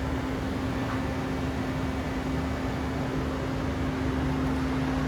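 Steady hum of a powered-up CNC turning center and its equipment, a constant low tone over a machine-room noise.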